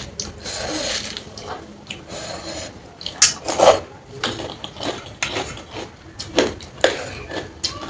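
Eating sounds close to the microphone: a person chewing and smacking a mouthful of soaked rice and side dishes, with irregular wet clicks and snaps. The loudest few come a little after three seconds in.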